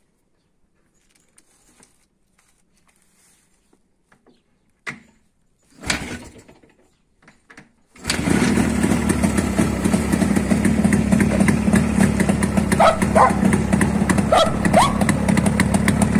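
Jawa 350 TS (type 638) two-stroke parallel-twin motorcycle engine being kick-started: a couple of knocks from the kick about five and six seconds in, then the engine catches about eight seconds in and keeps running steadily.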